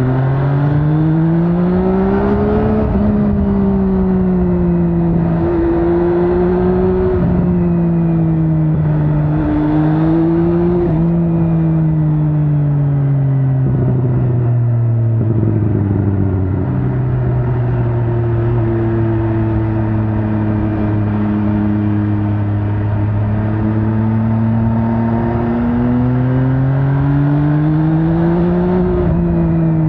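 MV Agusta Brutale 800's three-cylinder engine under way. Revs climb in the first few seconds, then fall and rise again several times, hold steady through a middle stretch, and climb again near the end as the bike accelerates and rolls off.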